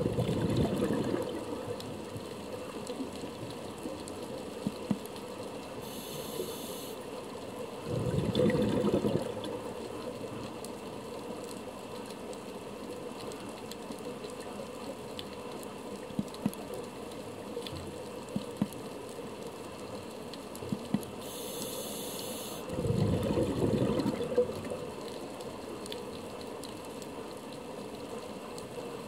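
Scuba diver breathing through a regulator underwater: exhaled bubbles rush out in three bursts of a second or two, near the start, about eight seconds in and about twenty-three seconds in, each of the later two after a faint hiss of inhalation. Under it a steady underwater hiss with scattered sharp clicks.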